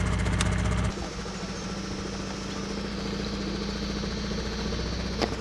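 A small boat's engine runs steadily. About a second in its low hum drops and gets quieter, then carries on evenly. A single sharp knock comes near the end.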